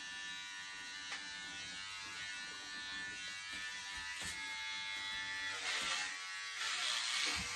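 Electric hair clippers buzzing steadily as they run through thick hair. Near the end the rasp of the cutting grows louder as the blades pull at the hair.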